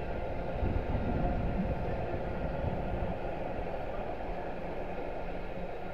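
Freight train wagons rolling past with a steady low rumble of wheels on rail.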